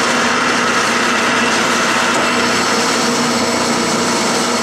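Clausing lathe running at 600 RPM while a parting tool under power feed cuts off 3/4-inch brass bar: a loud, steady machine sound with a constant hum.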